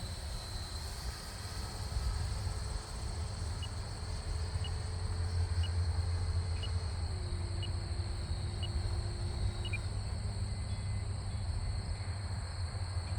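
Electric ducted fan of an RC F-16 jet running at low throttle, its steady whine stepping down in pitch about seven seconds in and cutting out near ten seconds as the jet slows to land. Wind rumbles on the microphone throughout, with faint short beeps about once a second.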